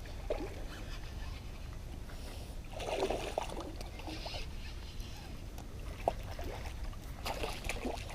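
Water sloshing and splashing in short bursts, the loudest about three seconds in and more near the end, over a steady low rumble of wind on the microphone.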